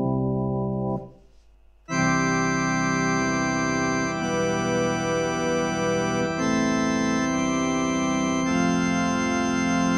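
General MIDI organ voice from a VS1053b wavetable sound-module chip, played as sustained keyboard chords. A held chord stops about a second in, then after a short silence further held chords follow with a pulsing waver, changing every two seconds or so.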